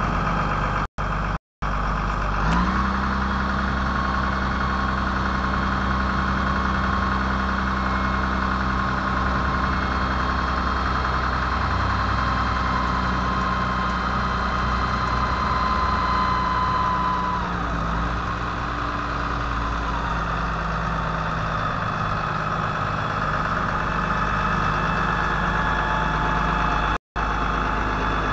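1992 GMC TopKick dump truck's engine running steadily while its hydraulic hoist raises the dump body. A steady whine sets in about two and a half seconds in and drops away around seventeen seconds in. The sound cuts out briefly three times.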